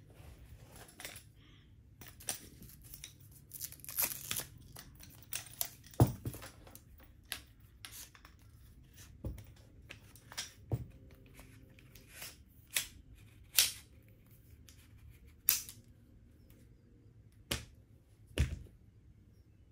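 Metal sections of a TREKOLOGY collapsible trekking pole clicking and clacking as the pole is unfolded, extended and locked, with short scraping rasps between the clicks. About a dozen sharp, irregular clicks, the loudest about six seconds in.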